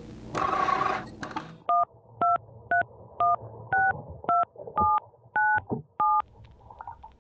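A short burst of static hiss, then a phone number dialled on a touch-tone keypad: nine short two-tone beeps about half a second apart.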